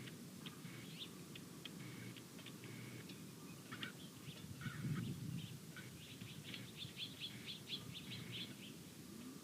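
Birds calling at a feeder with short scattered chirps and clicks and a quick run of notes about two-thirds of the way through. There is a dull low thump about halfway through.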